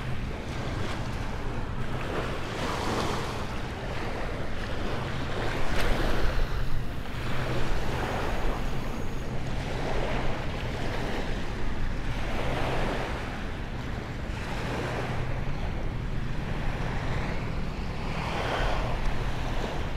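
Small bay waves lapping and breaking on a sandy shore, each wash swelling and fading every two or three seconds, with wind rumbling on the microphone.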